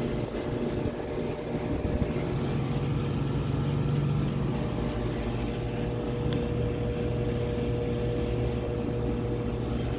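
Carrier Tech2000SS 5-ton central air conditioner condensing units: steady running noise with a low electrical hum and a steady higher tone. One unit is buzzing without running, which the owner takes for a bad run capacitor.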